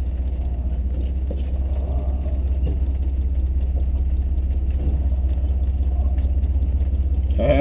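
The S-10 Blazer's engine heard from inside the cab, a steady low drone at crawling speed on a rough trail. A short, louder burst comes near the end.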